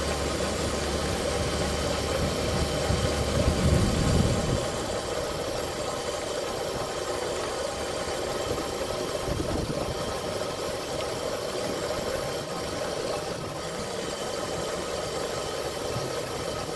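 Razor MX500 electric dirt bike under way on asphalt: its chain-driven electric motor whines steadily over drivetrain rattle and tyre noise. A louder low rumble eases off about four seconds in.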